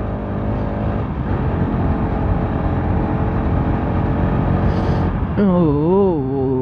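Bajaj Pulsar RS200 single-cylinder engine running at cruising speed, heard from the rider's seat with steady wind noise on the microphone. Near the end a pitched sound joins in, rising and falling in pitch.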